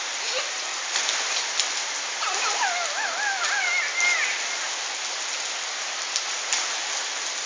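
Steady rain falling, with scattered sharp drop ticks on nearby surfaces. About two seconds in, a high, wavering voice sounds for about two seconds over the rain.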